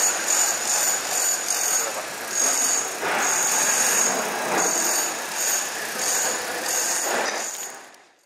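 Busy street-market ambience: a dense crowd murmur and street noise, with a high-pitched whine that comes and goes every half second or so. It fades out in the last second.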